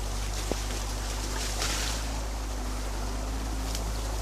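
Muddy water rushing through a breach in a beaver dam, over the steady low drone of an excavator's diesel engine running.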